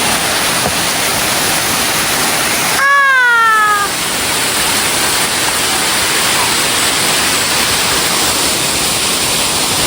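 Waterfall rushing, loud and steady. About three seconds in, a brief high voice-like cry falls in pitch over about a second.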